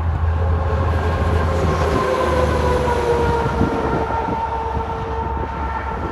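Long-nose semi tractor with twin exhaust stacks, running bobtail without a trailer, passing on the highway and moving away. Its engine and tyres give a steady drone with a low rumble and a whine that slowly drops in pitch as it goes by.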